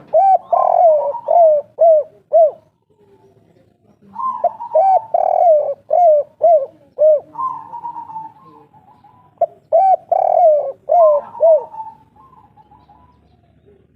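Spotted dove (tekukur/derkuku) cooing the 'kuk 3' song. Three phrases of short hooked coos with a held note, the second about four seconds in and the third about nine and a half seconds in.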